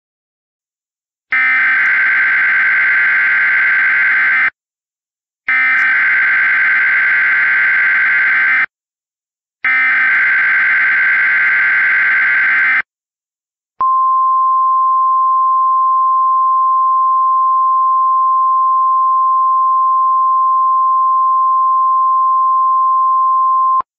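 NOAA Weather Radio alert signal: three bursts of SAME digital header data, each about three seconds long with a second's gap between, then the single steady 1050 Hz warning alarm tone held for about ten seconds. It marks the start of a tropical storm watch alert.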